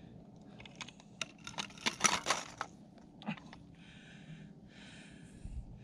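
Wooden ice-fishing tip-up being handled and set down on the ice: a run of light clicks and knocks, with a louder clatter about two seconds in. Two short breathy hisses follow near the end.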